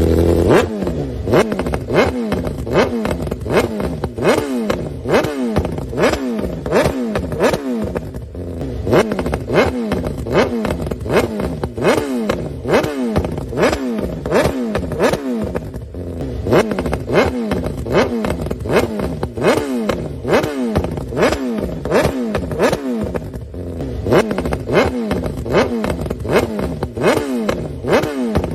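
Sport motorcycle's inline-four engine with a straight-pipe exhaust, revved in quick, repeated throttle blips, each rev rising and falling back again over and over.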